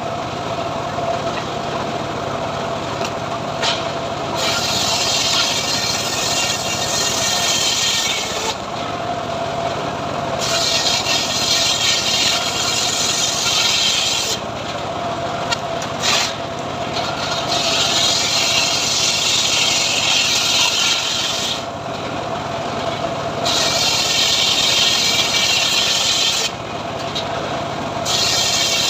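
Homemade sawmill running with a steady motor hum while its blade cuts sengon (albizia) wood. The hissing rasp of the cut comes in repeated passes of about four seconds, broken by short pauses of about two seconds, five times.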